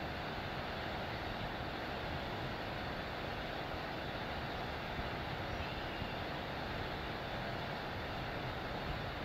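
Steady outdoor background noise with a low rumble, unchanging throughout, with no distinct events standing out.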